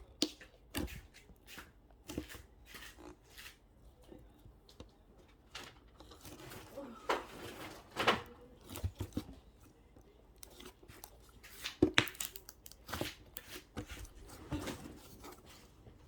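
Close handling sounds: scattered sharp clicks and taps, with a stretch of crinkling or tearing in the middle.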